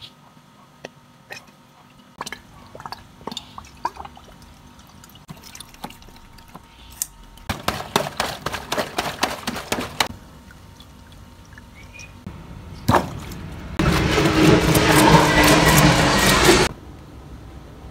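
Water from a garden hose filling a stretchy rubber toy, sloshing and gurgling inside it as it swells. There is a run of slaps from a hand patting the bloated toy for a couple of seconds midway. Near the end a louder rush of water lasts about three seconds and cuts off suddenly.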